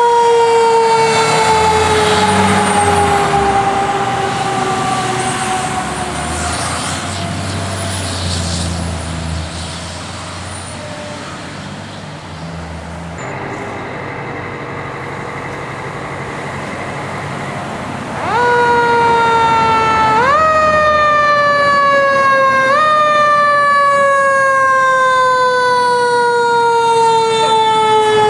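Fire truck siren gliding slowly down in pitch over the low rumble of the engine pulling out. Later a ladder truck's siren comes in, is pushed back up in pitch three times in quick steps, and coasts slowly down between them as the truck approaches.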